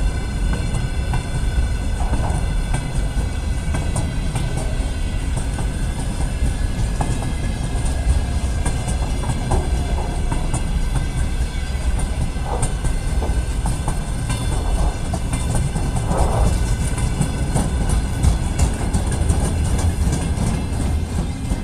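Open-top freight wagons of a long freight train rolling past at speed: a steady heavy rumble with irregular clicks of the wheels over rail joints and several thin, steady high ringing tones from the wheels and rails.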